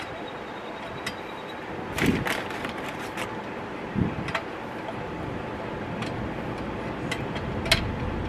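Charcoal briquettes being taken by hand from a paper charcoal bag and set into a small tabletop charcoal grill: bag rustling with scattered light clicks and knocks, the loudest about two and four seconds in.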